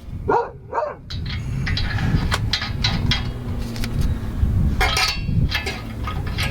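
A dog barks twice, then sharp metallic clicks and clinks sound over a steady low rumble.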